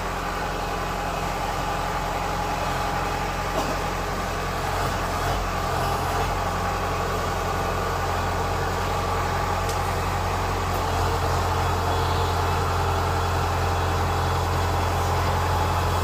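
Kubota DC-105X combine harvester's diesel engine running steadily at idle, a low hum that gets a little louder about eleven seconds in.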